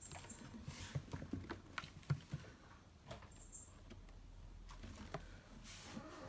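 Faint, scattered light taps and rustles of a kitten moving about, with two brief high-pitched peeps, one at the start and one about halfway through.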